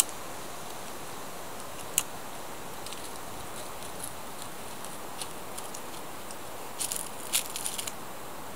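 Dry twigs and leaves crackling over a steady outdoor hiss: a single sharp click about two seconds in, and a quick run of crackles about a second before the end.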